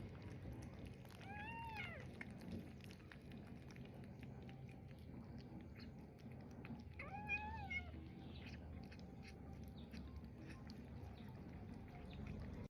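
Kitten meowing twice, high thin calls that rise and fall, about six seconds apart. Faint small clicks and rustles sound between them.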